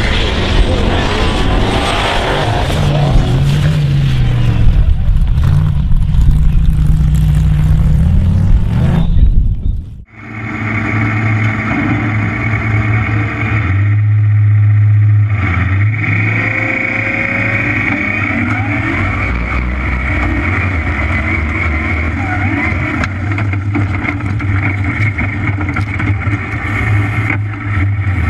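Formula offroad buggy engines at full throttle racing up a mud drag strip, their pitch rising and falling. About ten seconds in the sound cuts off sharply, and one buggy's engine follows, heard from on board, running at a steadier high note.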